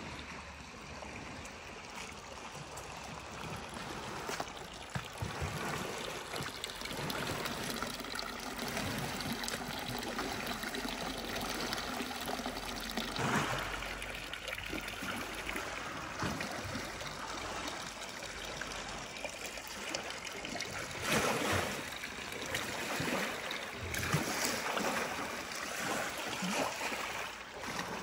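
Water trickling and splashing from the spout of a stone village fountain into its trough, over a steady hiss, with a few louder knocks.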